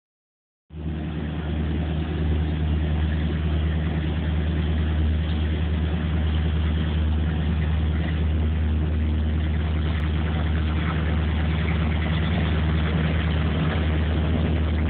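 Diesel locomotive engine of a ballast train idling with a steady, deep hum, starting less than a second in.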